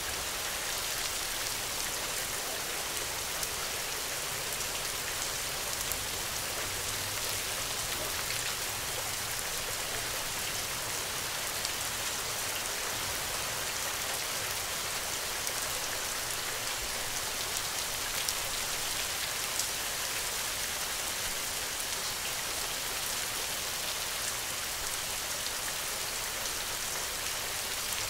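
Steady rain falling, an even hiss with scattered individual drop hits.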